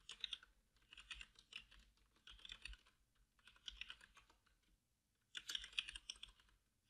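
Computer keyboard typing, quiet, in five short bursts of rapid key clicks with brief pauses between them.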